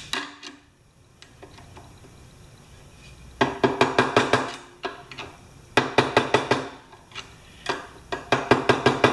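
Hammer tapping on a screwdriver used as a drift, driving the U-shaped locking pin into the new unloader housing on a Briggs & Stratton pressure washer pump. There are three quick runs of sharp taps, each about a second long, a second or so apart.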